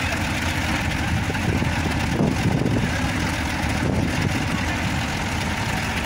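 Truck-mounted crane's diesel engine running steadily as it holds and shifts a large wooden boat hull.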